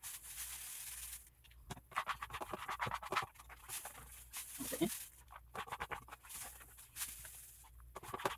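Plastic sifting scoop scraping and shaking through pine wood litter pellets and sawdust in a plastic litter box, in several short rustling, pattering strokes.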